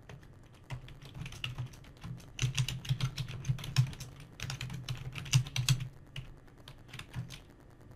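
Typing on a computer keyboard: scattered key clicks that become a quick, dense run in the middle, then thin out again near the end.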